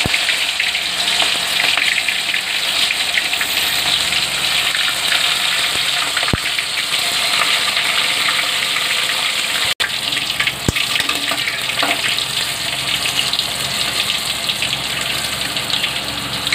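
Masala-coated crab pieces deep-frying in hot oil in an aluminium kadai: a loud, steady crackling sizzle that holds throughout, with a momentary dropout about ten seconds in.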